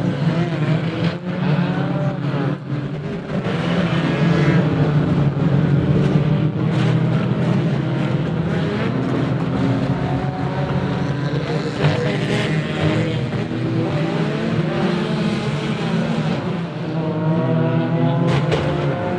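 Several banger racing cars' engines running and revving hard together on an oval track, their pitches rising and falling against each other, with a few sharp knocks of car-to-car contact among them.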